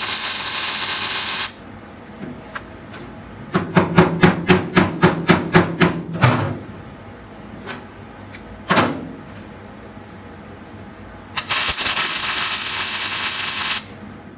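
Welding on a sheet-steel car floor pan: the arc crackles steadily for a couple of seconds at the start and again near the end. In between come about ten short, sharp weld zaps at about three to four a second, each with a low hum, and then one more single zap.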